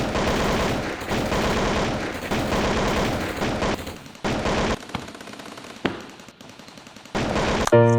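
Rapid automatic gunfire in several long bursts, broken by a quieter lull with a single shot in the middle. A piano tune begins right at the end.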